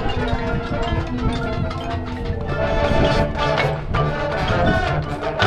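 Marching band playing its field show: brass with held notes over percussion, with frequent struck accents.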